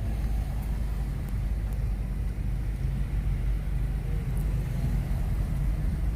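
Steady low rumble of a motor vehicle running, an even drone with no sudden events.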